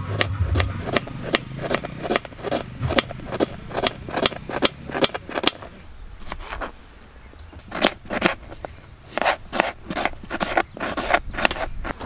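Kitchen knife chopping an onion on a plastic cutting board: a quick run of sharp taps, about three or four a second, pausing for a couple of seconds a little past the middle before starting again.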